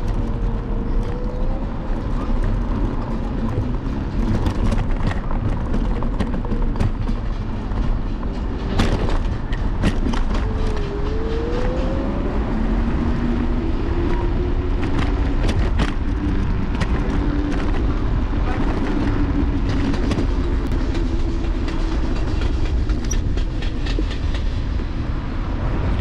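Apollo Explore electric scooter rolling over rough paving, heard from a camera on its handlebars: a steady low rumble with frequent small rattles and clicks from the bumps.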